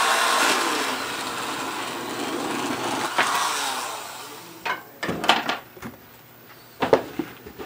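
Portable carpet cutter running and slicing through a strip of carpet, its motor noise trailing off about four seconds in. A few short knocks follow as the cut piece is handled.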